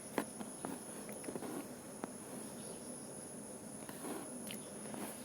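Quiet background with a faint, steady high-pitched whine and a few soft clicks.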